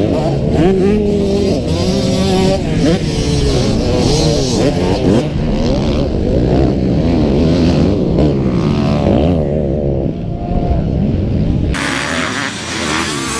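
Motocross bikes racing past, their engines revving up and down with overlapping, rising and falling pitches as riders accelerate, jump and shift. About 12 s in the sound switches abruptly to a more distant, hissier mix of several bikes on the track.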